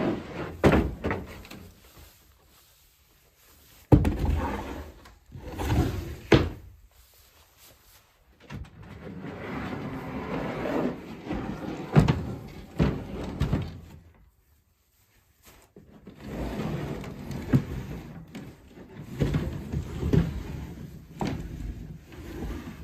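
Plywood camper-build panels and a wooden frame being slid and lifted out of a pickup truck bed: wood scraping along the bed with several knocks and thuds as the pieces bump and are set down.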